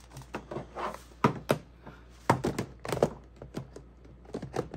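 Small plastic seed-storage cases clicking and knocking as they are handled and set into their plastic storage box: several sharp, irregular clicks with softer taps between.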